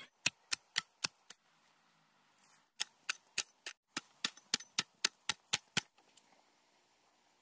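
A hoe blade striking hard, dry ground in sharp, regular chops about four a second: a run of five, a pause of about a second and a half, then a run of about a dozen.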